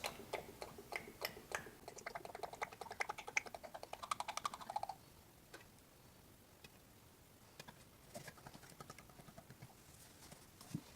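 Motor oil glugging out of a quart bottle into a funnel in the engine's filler neck, a quick clicky gurgling that rises in pitch and stops about five seconds in, followed by a few faint scattered clicks.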